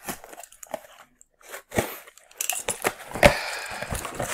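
A cardboard mailer package being handled and opened by hand. Scattered light clicks and rustles give way, about two and a half seconds in, to a denser run of paper-and-cardboard rustling, with one sharp knock just after three seconds.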